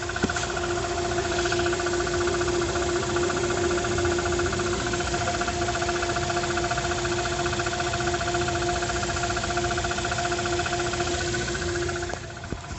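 Chery Tiggo 8 engine running after a cold start, with a steady whine and a fast, even knocking that the owner cannot account for. The sound fades out near the end.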